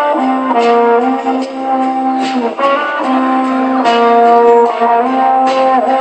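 Street performers playing music: a melody of held notes that changes pitch every second or so, with a few sharp accents.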